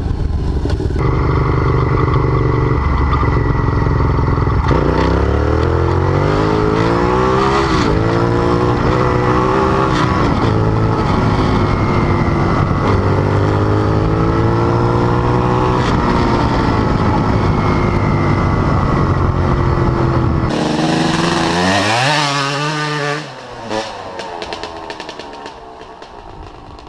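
Motorcycle engine accelerating through the gears, its pitch climbing and dropping back at each shift. Later a bike passes with a falling pitch, and the engine sound fades to a lower level near the end.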